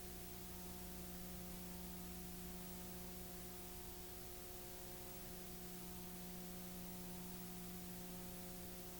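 Faint steady electrical hum over an even hiss, unchanging throughout.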